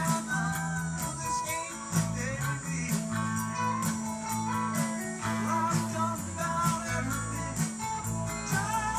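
Live rock band playing: electric guitars over bass guitar, drums and keyboards, with a lead line that bends up and down in pitch.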